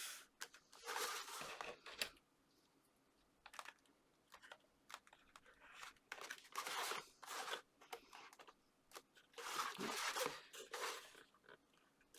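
Card stock being handled and pressed together, rustling and crinkling in irregular bursts with short pauses between.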